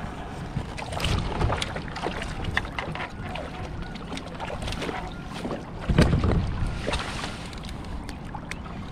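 Walleye being landed in a rubber-mesh landing net beside a kayak: irregular water splashing and knocks of the net frame against the kayak, with a loud thump about six seconds in.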